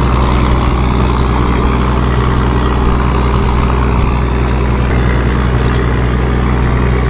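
Small outboard motor running at a steady speed, a constant low hum with an even hiss over it.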